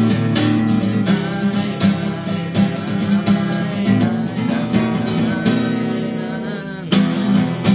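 Acoustic guitar strumming chords in the instrumental ending of a song, with no singing. Past the middle the strokes thin out and a chord rings and fades; strong strumming comes back near the end.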